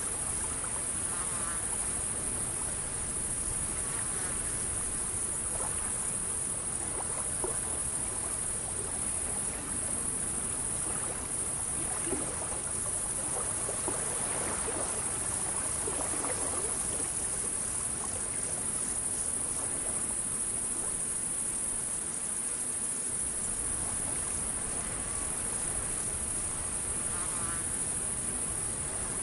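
Steady, high-pitched chorus of insects chirring, with a few faint scattered chirps beneath it.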